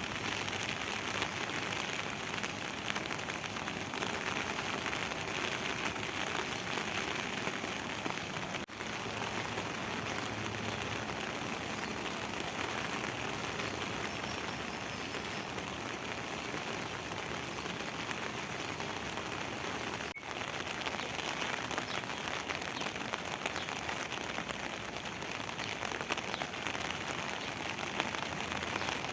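Steady rain falling, an even patter and hiss throughout. The sound drops out for an instant twice.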